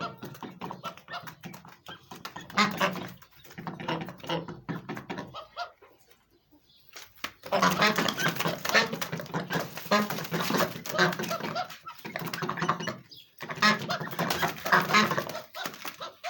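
White domestic ducks quacking in bouts of rapid repeated quacks, with short pauses between bouts and the longest, loudest run in the middle.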